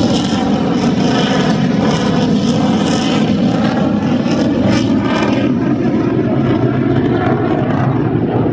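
An F-22 Raptor fighter jet's engines running loud as it flies a display pass. A steady jet rumble, with a hissing tone that sweeps up and down as the plane moves across the sky.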